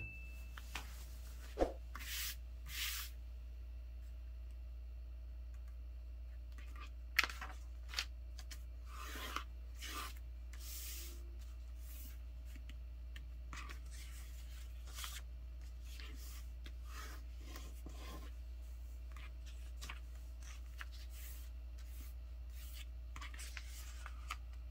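A sheet of paper being handled and folded by hand: soft rustles and rubbing strokes as creases are pressed flat, with a few sharp ticks, over a steady low hum.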